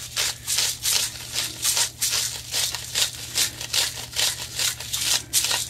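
Plastic salt grinder being twisted by hand, crushing coarse pink salt in a quick run of gritty, scratchy crunches, several a second.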